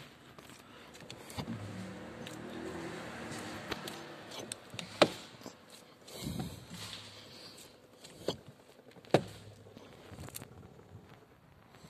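Fiat Linea's power steering whirring for a few seconds as the steering wheel is turned side to side in the parked car, pumping old fluid out of the hydraulic system. A dull knock and a few sharp clicks follow in the second half.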